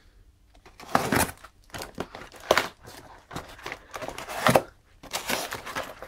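Box cutter slitting the packing tape and cardboard of a small parcel: irregular scraping cuts mixed with the rustle of the box being handled, the sharpest strokes about a second in, halfway through and near the end.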